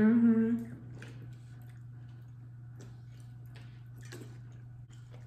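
Eating sounds of a seafood boil eaten by hand: scattered small clicks, wet chewing and finger-licking noises, over a steady low hum. A short hummed voice sound opens it.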